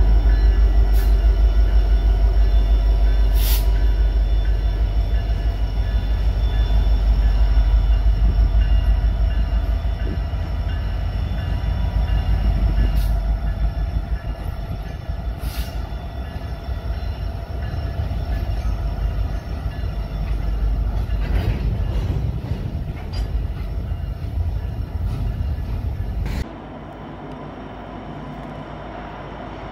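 EMD SD70ACu diesel locomotive and freight cars passing close by: a deep, heavy engine and wheel rumble that slowly fades as the train moves along, with a few short sharp squeals or metallic clanks from the wheels. About 26 seconds in the sound cuts off abruptly to a quieter, more distant train rumble.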